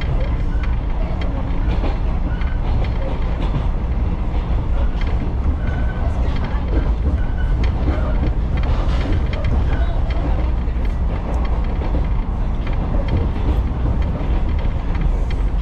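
Echizen Railway train running at speed, heard from inside the passenger car: a steady low rumble of wheels on rails with occasional clicks.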